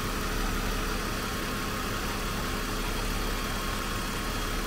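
BMW E46 330i's 3.0-litre M54 inline-six idling steadily while it warms up to purge air from the cooling system.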